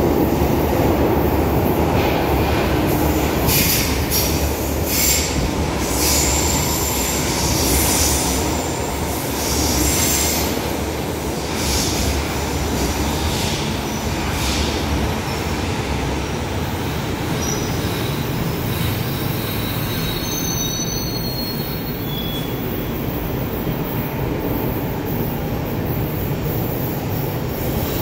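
São Paulo Metro train rolling along the platform with a steady low rumble, its wheels squealing in sharp high bursts through the first half. Short high-pitched squeals follow later on.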